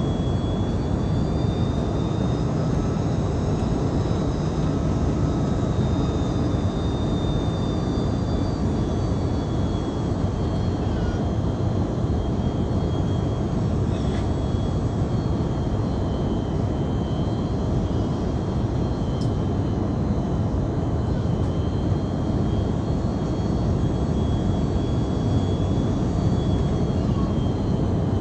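Steady cabin noise inside an Airbus A330-300 airliner on final approach: rushing air and engine noise, with a thin high whine that wavers slightly in pitch.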